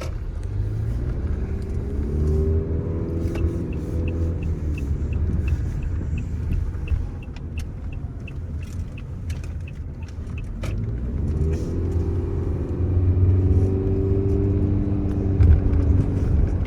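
Taxi ride heard from inside the cab: low road and engine rumble, with the car's pitch rising twice as it picks up speed. A light regular ticking, about two a second, runs for several seconds after the first speed-up.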